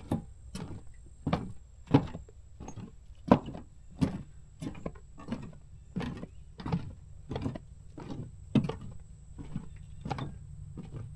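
Footsteps on a wooden boardwalk at a steady walking pace, about three steps every two seconds.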